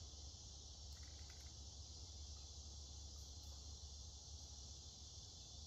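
Near silence: room tone of a steady high-pitched hiss over a low hum, with a few faint clicks about a second in.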